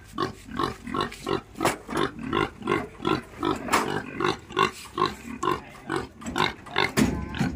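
Fattening pig in a metal crate grunting over and over, short grunts about three a second.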